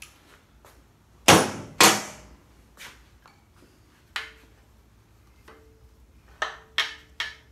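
Metal knocks and clinks of tools and parts on an engine case being assembled: two loud knocks about a second in, half a second apart, then a few lighter clinks, some ringing briefly.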